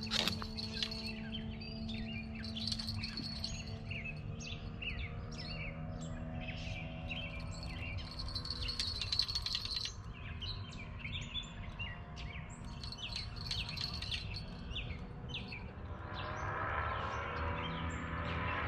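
Several songbirds singing and chirping continuously, many short quick calls and trills, over a steady low hum; a rougher rushing noise comes in near the end.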